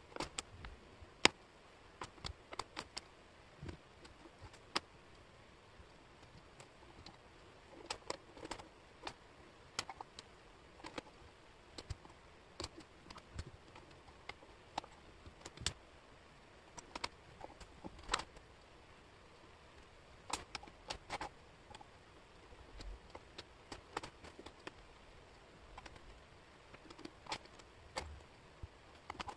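Wooden jigsaw puzzle pieces clicking and tapping against each other and the table as they are picked up, shifted and fitted into place: scattered, irregular sharp clicks, a few a second.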